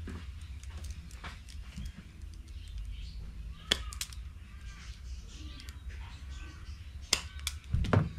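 Sharp clicks and snaps of a hand wire stripper working the end of a wire, a few in the middle and a louder cluster near the end, over a steady low hum. Birds call in the background.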